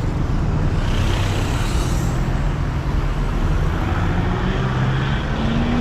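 Road traffic: steady engine and road noise, with an engine's pitch rising near the end as a vehicle speeds up.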